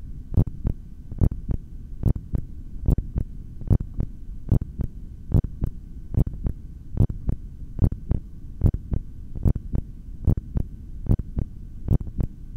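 Human heartbeat picked up through a stethoscope, a steady lub-dub a little over once a second, over a low rumble. It is the heart of a man about a minute and a half into a full-lung breath-hold.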